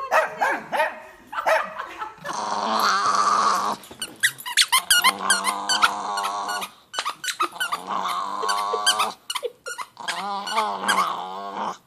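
Chihuahua growling with its teeth bared: a high, wavering snarl in several long stretches broken by short pauses. Short sharp sounds come in the first couple of seconds.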